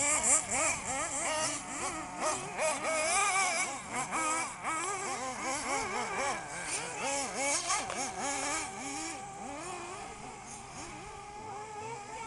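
Several 1/8-scale off-road RC buggies' small nitro engines racing, their pitch swooping up and down quickly as they rev and back off through the track, overlapping one another. The sound grows fainter in the last few seconds.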